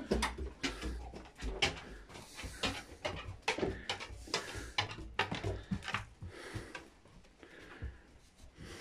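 Footsteps climbing an open wooden staircase: a run of irregular knocks and taps on the treads that thins out and gets quieter near the end.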